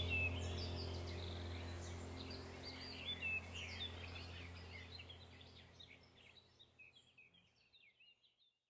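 Faint recorded birdsong, many short chirps and twitters, over a low steady hum. It fades out evenly to nothing near the end.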